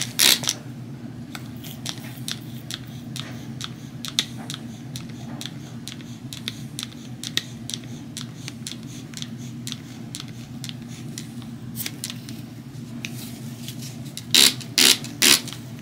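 Plastic trigger spray bottle clicking as FilmGuard fluid is squirted straight onto a Kelmar film cleaner's pad. Light clicks come throughout, then three louder spray bursts about half a second apart near the end, over a low steady hum.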